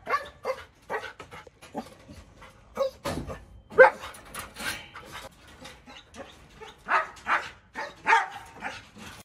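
Caged dogs barking in short, irregular barks of uneven loudness, the loudest about four seconds in.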